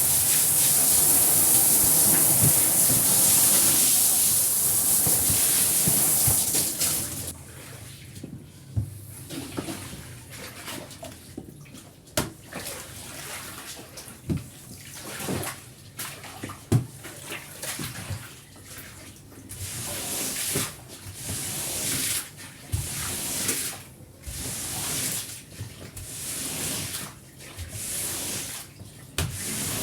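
Water spraying with a loud steady hiss, as in rinsing a rug, which cuts off about seven seconds in; after that come quieter, irregular swishes and splashes of wet scrubbing or water being worked, with a few sharp knocks.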